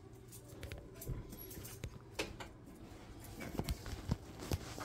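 A few light, irregular knocks and clinks as a stack of plates is handled.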